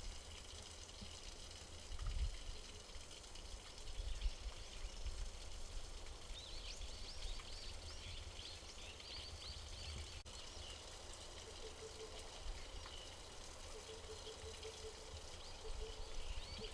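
Outdoor ambience: birds chirping in a quick series of short high calls from about six to ten seconds in and again briefly near the end, over a faint low rumble.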